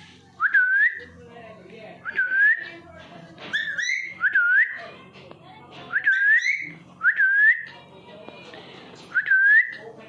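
Short clear whistles, each dipping and then rising in pitch, repeated about every one to two seconds.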